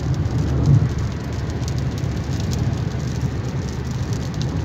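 Car driving at highway speed in rain, heard from inside: a steady low road and wind rumble, with raindrops ticking on the windscreen.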